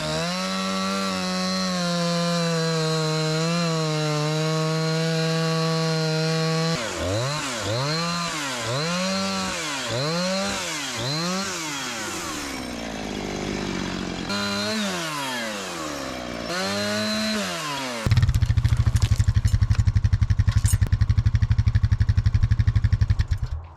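Gas chainsaw bucking a blown-over spruce log: held at steady high revs in the cut, then revved up and down repeatedly. About three-quarters through, a louder, rougher, lower-pitched engine sound with a fast even pulse takes over and stops suddenly at the end.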